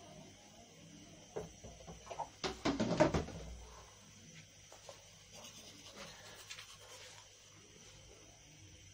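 A cluster of knocks and clatter, like objects being handled and set down, loudest about three seconds in, followed by fainter scratching and rustling.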